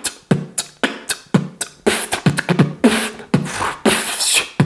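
Human mouth beatboxing: a steady beat of about four hits a second, kick-drum sounds with short falling low thumps alternating with hissing snare and hi-hat sounds, done while blowing out vape smoke.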